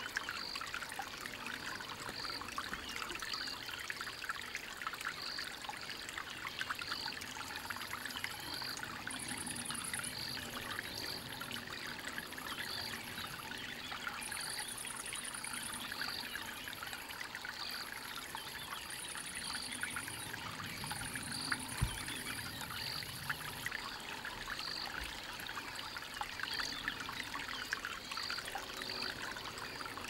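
Steady trickling water, with a faint high peep repeating about once a second and an on-and-off very high buzz in the middle. A single brief low thump comes about two-thirds of the way through.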